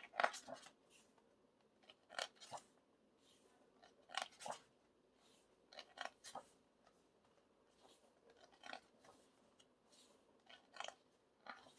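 Glossy pages of a photobook being turned and handled: short, crisp paper rustles, one every second or two.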